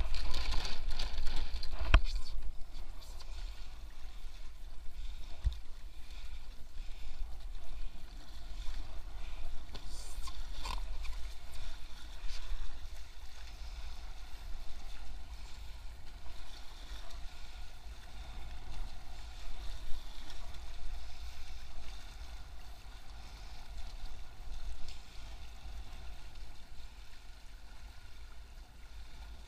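Water rushing and splashing along the hulls of an A-Class catamaran under sail, with wind buffeting the microphone as a steady low rumble. The splashing is loudest in the first couple of seconds, with a few sharper splashes about ten seconds in.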